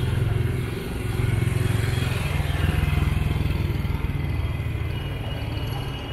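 Motorcycle engine running as the bike passes close by and rides away. It grows louder about a second in, then slowly fades.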